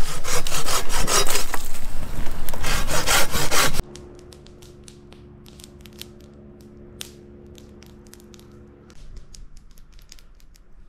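A hand saw cutting through wood in quick, even strokes, about four a second, stopping abruptly almost four seconds in. After that, faint scattered crackles and ticks from a campfire.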